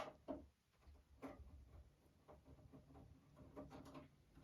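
Faint scattered clicks and scrapes of a homemade long screwdriver working the recessed case screws of a Macintosh Plus, metal tool against screw and plastic case.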